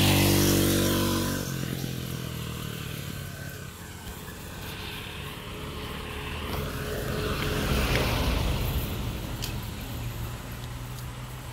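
An engine hum cuts off about a second and a half in. Then a small truck approaches and passes, its engine and tyre noise growing louder to a peak about eight seconds in and fading away.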